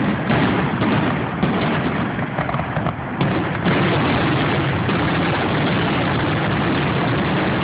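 Fireworks exploding in a dense, continuous barrage, with sharper bangs standing out a moment in and again around three to four seconds in.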